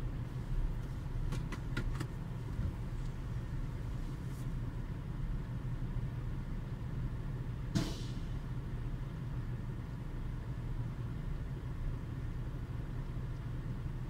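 Steady low rumble of a freight train passing a railroad crossing, heard from inside a stopped, idling car. A few faint clicks come between one and two seconds in, and one brief sharp noise about eight seconds in.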